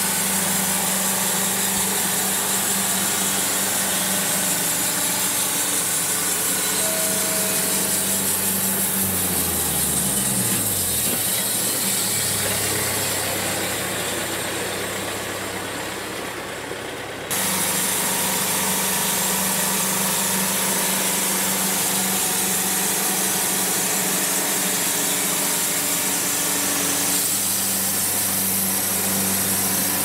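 Wood-Mizer LT70 band sawmill running, its engine and band blade sawing through a cypress log. About nine seconds in, a low tone slides down in pitch and the sound slowly fades a little, then comes back abruptly at full level at about seventeen seconds and runs steady.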